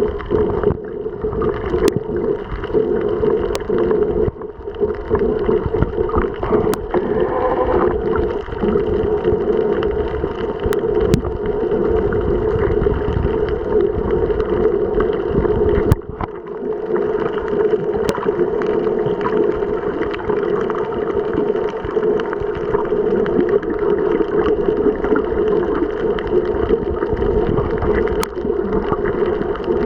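Muffled underwater ambience: a steady hum under a wash of water noise, with a few scattered sharp clicks.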